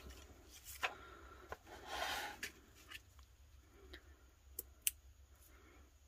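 Faint handling sounds of a plastic sheet of stick-on gem dots: a soft rustle of the sheet about two seconds in, and a few light clicks and taps, two of them close together near the end.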